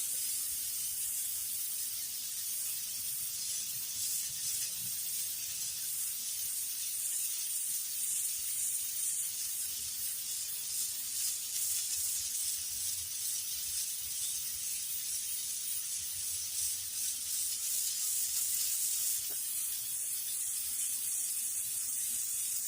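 Turbo Jet power washer hose-end nozzle spraying a jet of water from a garden hose onto a dirty surface, a steady hiss.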